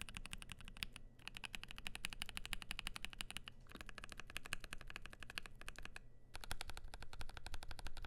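Fast typing on an ASUS ROG Azoth mechanical keyboard with lubed Gateron Oil King linear switches, PBT keycaps and an aluminium plate: dense runs of keystrokes broken by short pauses about a second in, around three and a half seconds and around six seconds.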